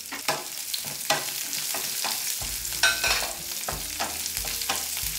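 Red onion wedges, garlic and ginger sizzling in hot oil in a nonstick frying pan, with a wooden spatula repeatedly scraping and tapping the pan as they are stirred.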